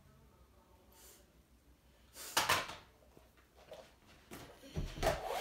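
A few household knocks and rustles of objects being handled: one short knock a couple of seconds in, then a cluster of knocks and rustling near the end with a low thud.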